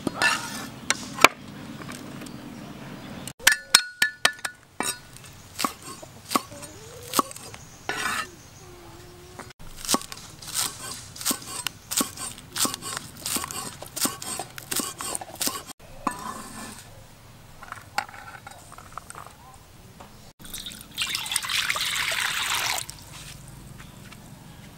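Steel cleaver chopping spring onions on a wooden chopping board, a steady run of sharp knocks about two a second, after a few ringing metallic clinks. Near the end, hot oil sizzles in a large wok with a loud steady hiss.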